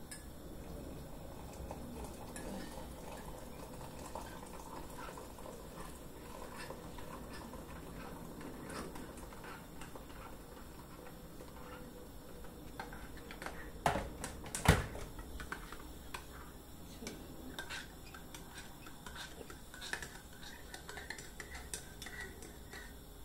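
A metal teaspoon clinking against a ceramic mug, and hot water poured into the mug from an electric kettle. Two sharp knocks, the loudest sounds, come a little past the middle, and there is more spoon clinking from stirring near the end.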